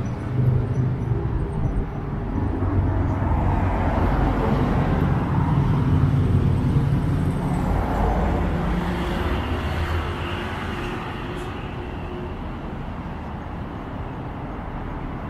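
City street traffic, with a motor vehicle's engine running close by. It grows louder toward the middle and then fades away as the vehicle moves off.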